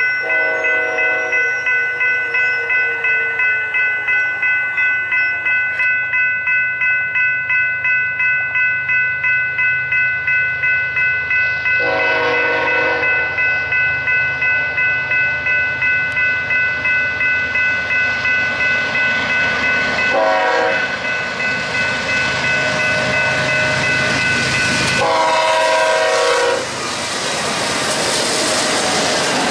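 Diesel freight locomotive horn sounding the grade-crossing signal, long, long, short, long, over a crossing bell ringing a couple of times a second. The bell stops near the end as the train passes with rising wheel-and-rail clatter.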